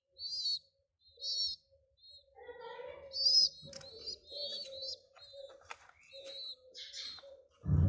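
Young pigeons (squeakers) giving short, high-pitched squeaking calls, repeated irregularly. A sudden louder noisy sound comes in right at the end.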